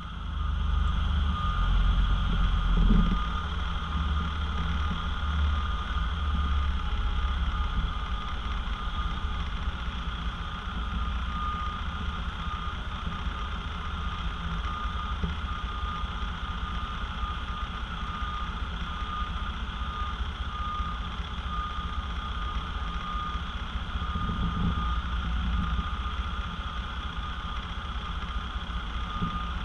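Heavy truck's diesel engine running low and steady as the B-double reverses slowly, with a reversing alarm beeping steadily over it. The engine swells briefly a couple of times.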